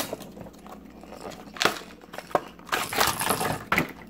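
Plastic lure packaging crinkling and crackling in irregular bursts as a topwater Spook lure is worked out of it by hand.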